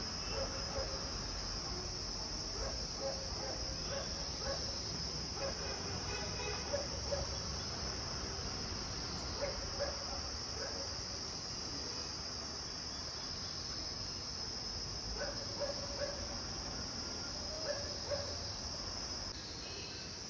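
Steady high-pitched chorus of insects chirring without a break, with brief fainter calls now and then. The chorus drops slightly in level about a second before the end.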